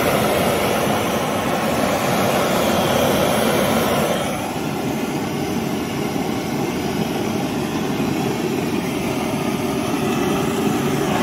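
Handheld gas blowtorch burning steadily, heating a small steel part to red heat. About four seconds in the sound gets slightly quieter and duller, and a faint steady hum comes in.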